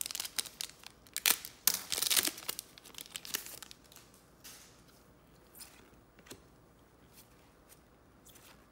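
Trading cards and their packaging handled: a run of rustling, crinkling scrapes over the first few seconds, then a few faint taps.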